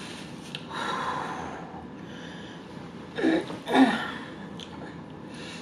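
A woman's breathing and short vocal noises: a long breath out about a second in, then two short voiced sounds a little after three seconds in, the second one the loudest.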